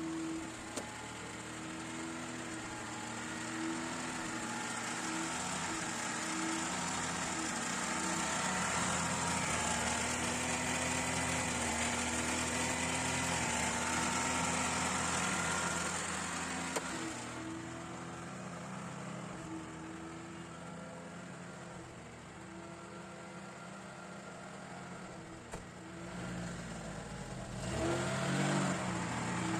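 Lada 1500's four-cylinder engine running, with noise from its failing alternator and thin wavering tones above the engine note. The engine gets louder for several seconds, drops back about halfway through, and picks up again near the end.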